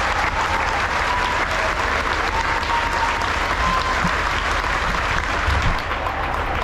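Audience applauding steadily after a graduate's name is called.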